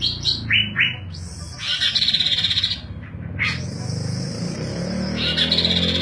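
A caged chestnut-capped babbler (tepus glagah) singing. It gives a few short high notes, then two quick lower whistled notes, then fast chattering trills.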